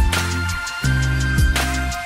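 Intro music with a steady beat, deep bass notes and long held synth tones.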